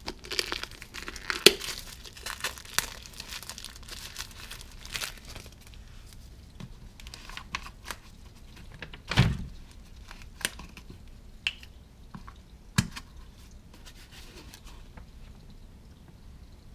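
Gloved hands handling an oil filter and a plastic motor-oil jug: crinkly rustling and small clicks, with a few sharper knocks and a heavier thump about halfway.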